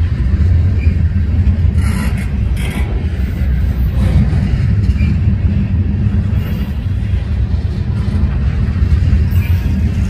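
Long mixed freight train rolling past: a steady low rumble of wheels on the rails, with a couple of sharp clanks about two seconds in and brief faint squeals.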